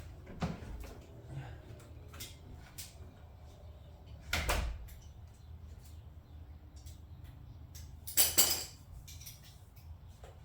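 Two short clatters about four seconds apart, with a few faint clicks, over a low steady hum.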